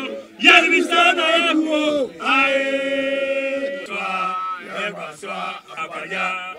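A man chanting in a sing-song voice, wavering lines broken by long held notes, the longest lasting over a second.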